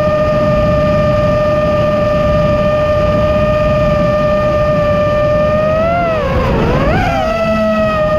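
iFlight Nazgul Evoque F5 5-inch FPV quadcopter's brushless motors and propellers whining at a steady pitch, with a low rushing noise beneath. About six seconds in, the pitch drops and swoops back up within a second as the throttle is eased off and opened again.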